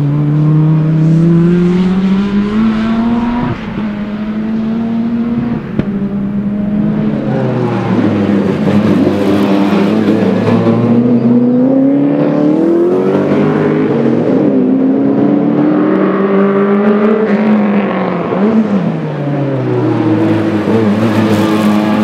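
Ford Sierra RS500 race car's turbocharged 2.0-litre four-cylinder Cosworth engine under hard acceleration, its pitch climbing through each gear and dropping at the shifts, several times over, with a sharp crack about six seconds in.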